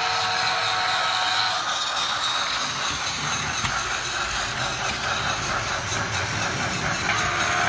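Tomy battery-powered toy steam locomotive running on plastic track, its small motor whirring and its sound-and-steam unit making a steady hiss with a thin held whine. A low rumble joins in from about three seconds in and fades again near the end.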